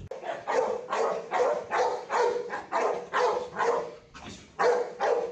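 An XL American Bully barking repeatedly, about two barks a second, at the decoy during protection training.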